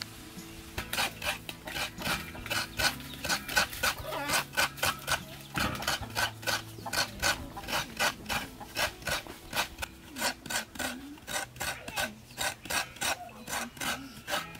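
A half coconut scraped against a hand grater, its flesh grated off in quick rhythmic rasping strokes, about three a second.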